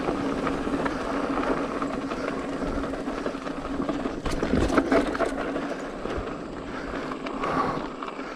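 Mountain bike rolling downhill on a dry dirt trail: tyre and ride noise with a steady hum underneath, and a few sharp knocks and rattles from the bike over bumps a little past halfway.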